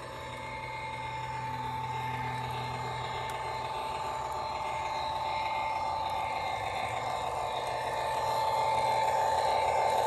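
O-scale model diesel train running on track, a steady whine over a low hum, growing louder as it approaches.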